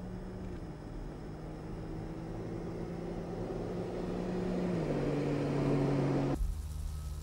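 Mercedes-AMG GT's twin-turbo V8 running at speed as the car passes. The engine note steps down in pitch twice and grows louder as the car nears, then cuts abruptly about six seconds in to a lower, rumbling engine sound.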